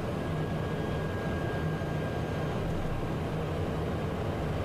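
Steady cockpit noise of a Cessna Citation jet in flight: a constant rush of airflow and engine hum, with a faint high tone during the first few seconds.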